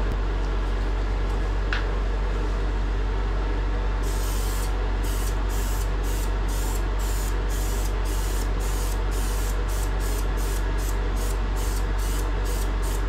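Aerosol sprayer with a glass jar fogging coating onto a fiberglass bathtub wall, hissing in bursts. After a longer hiss about four seconds in, it goes on in short bursts two to three times a second. A steady low hum runs underneath.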